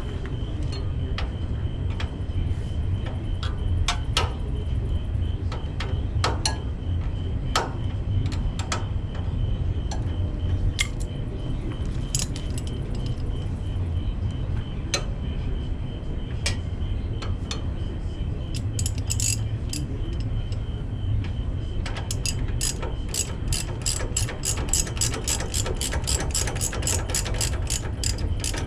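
Socket ratchet working the stabilizer bar and lower control arm bolts on the rear suspension: scattered clicks and knocks at first, then steady quick ratcheting at about five clicks a second through the last several seconds.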